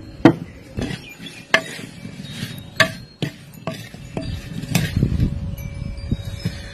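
Metal spoon stirring small whole onions in oil and spices in a bowl, clinking and knocking against the bowl in irregular sharp clicks, about eight in all, as the onion pickle is mixed.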